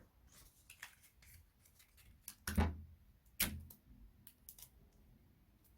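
Strips of paper being handled and bent into loops: faint rustling and small clicks, with two louder short crackles about two and a half and three and a half seconds in.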